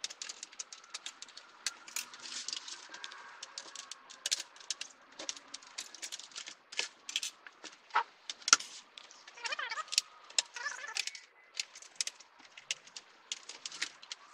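Large plastic diffuser and optical sheets from an edge-lit LED TV's backlight being lifted and handled: a run of light clicks, ticks and rattles as the sheets flex and tap, with one sharper click about eight and a half seconds in.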